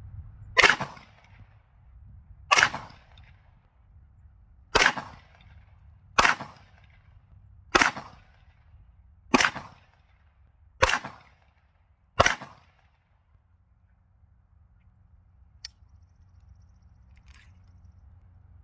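Eight handgun shots fired one at a time, evenly paced about one and a half to two seconds apart, each a sharp crack with a short echo; a magazine of eight emptied in slow aimed fire. A faint click follows a few seconds after the last shot.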